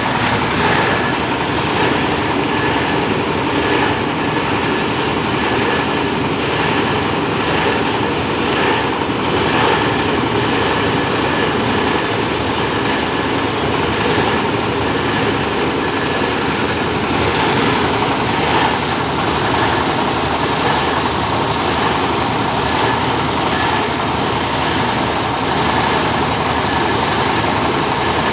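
Plastic shredder machine running steadily: a continuous mechanical noise with a faint high whine through it.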